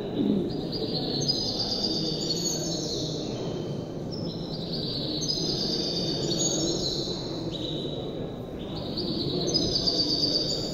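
A caged songbird singing a long, unbroken run of high, rolling trills, each held about a second before shifting to another pitch, over a low steady room murmur.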